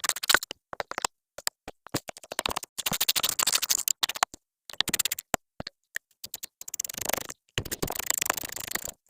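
Spells of rapid clicking and scraping from a ratchet wrench as bolts are undone, stopping and starting several times.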